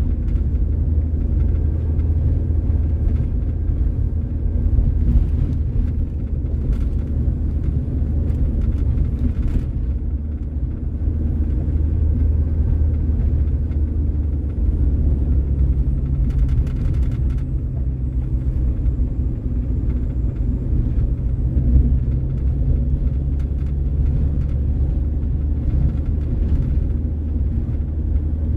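A road vehicle on the move: a steady low rumble of engine and road noise, with the engine note changing a little about halfway through.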